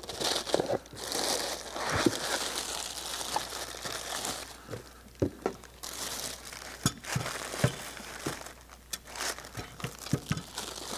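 Clear plastic bag and wrapping crinkling and rustling as a boxed item is lifted out and unwrapped. A few sharp clicks and taps come through the rustle.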